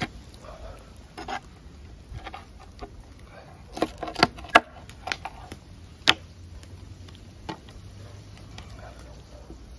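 Food-preparation handling noises: scattered sharp taps and clicks, with a cluster of them about four seconds in and another strong one near six seconds, over a low steady rumble.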